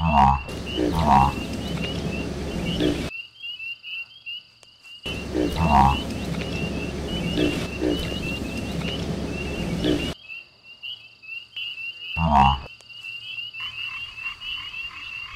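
Frogs calling: a few loud croaks spaced several seconds apart over a steady chorus of fast, high chirping. The sound cuts out suddenly twice, for about two seconds each time.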